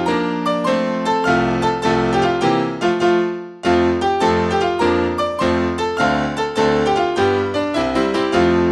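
Piano accompaniment to a silent film: a steady run of notes and chords that fades into a brief gap about three and a half seconds in, then picks up again.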